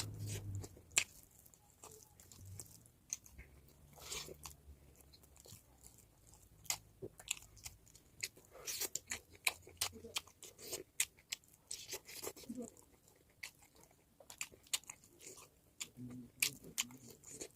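Close-up chewing and biting of a Naga pork dish: irregular wet clicks, smacks and small crunches of a mouth eating.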